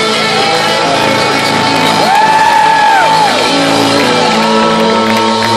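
Live rock band playing a song's ending: drums and crashing cymbals under ringing electric guitars, with shouts and whoops from the crowd.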